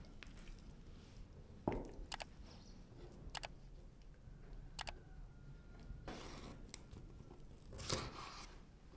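Kitchen food-preparation handling sounds: scattered light clicks and knocks, the loudest nearly two seconds in, and two brief rustles in the second half.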